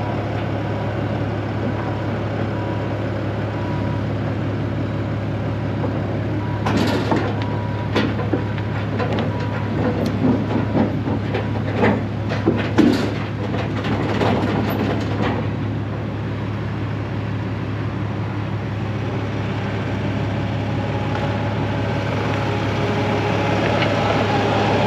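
Bobcat tracked skid steer's diesel engine running steadily as the machine drives down off a wooden-deck flatbed trailer. A run of clanks and knocks from its steel-cored tracks on the deck and ramps comes in the middle. The engine grows louder near the end as the machine comes alongside.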